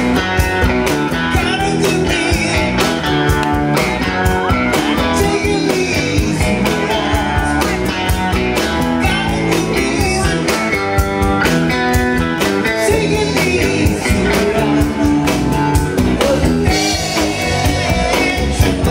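Live rock band playing: guitar over bass and a steady drum beat.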